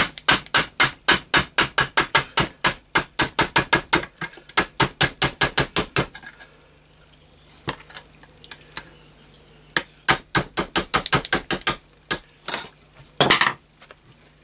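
Small ball-pein hammer tapping a steel pin punch to drive roll pins out of a Setra pump-up air rifle's pump tube: a fast, even run of light taps, about five a second, for six seconds, then a pause, a few single taps and another short run, with a louder knock near the end.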